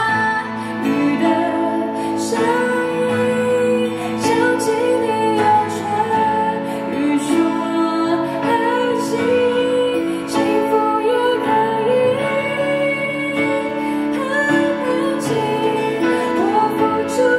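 A woman singing a Mandarin pop ballad live into a microphone, with an acoustic guitar accompanying her.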